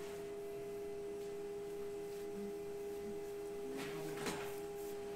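A steady, pure electronic tone holds unbroken, with a fainter higher tone above it. A couple of short clicks come about four seconds in.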